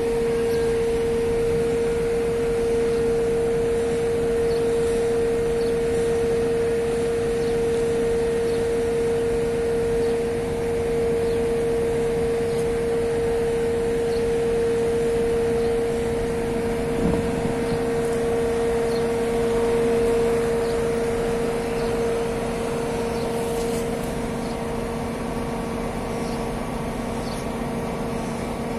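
Heavy crawler crane running under load while hoisting, a steady machine hum with a constant high whine from its engine and hoist drive.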